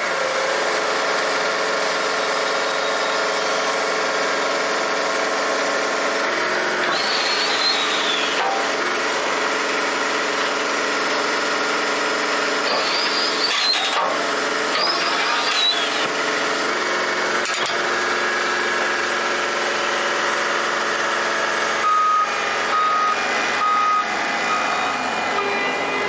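John Deere 333G skid steer's diesel engine running steadily while its hydraulics drive the Titan tree spade's blades into the ground to dig a hole. A few short beeps sound near the end.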